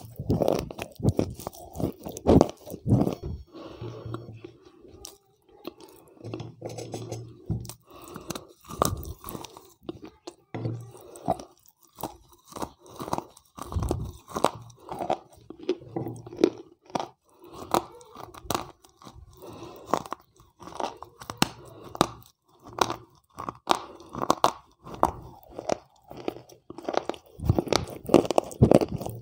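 Wet slate pencils bitten and chewed right at a lapel microphone held to the mouth: a steady run of crisp crunches, one or two a second.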